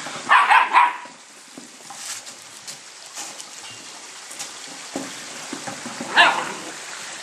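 Whippet puppies barking in play: a quick run of sharp barks about half a second in, and one high yip about six seconds in.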